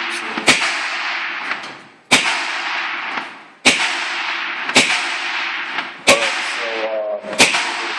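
Gunshots: six sharp cracks, one every second or so, each followed by a long echoing tail.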